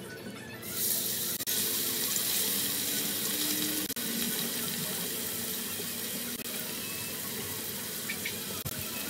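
Cubes of raw pork sizzling as they fry in hot oil in a skillet. The sizzle starts about a second in and then holds steady.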